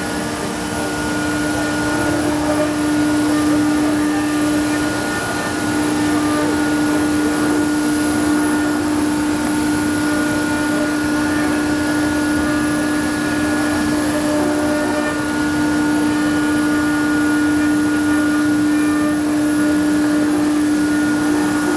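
SCM CNC router running steadily as it machines wood: a constant hum from the spindle over a rushing noise, holding the same pitch throughout.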